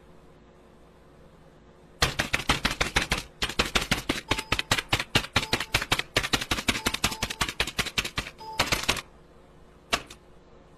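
Fast typing on a mechanical keyboard: a quick, uneven run of sharp key clicks lasting about seven seconds, starting about two seconds in.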